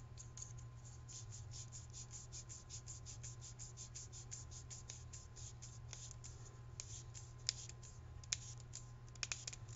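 Faint, rapid scratching and ticking of a lens assembly being turned by hand along the fine threads of a BNVD 1431 night-vision pod housing, with a few sharper clicks near the end. A steady low hum sits under it.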